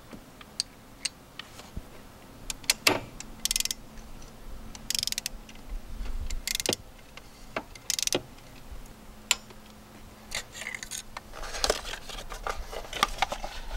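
Hand tools on metal: scattered clicks and clinks, with several short bursts of rapid clicking from a ratchet being worked as a spark plug is turned into the cylinder head.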